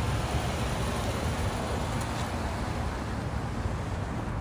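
Steady outdoor background noise: a low rumble with an even hiss over it, unchanging throughout.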